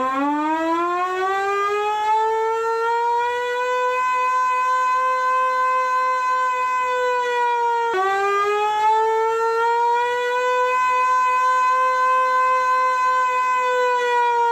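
Mechanical civil-defense-style siren winding up: its pitch rises over about four seconds and holds as a steady wail. About eight seconds in it dips sharply and winds up again.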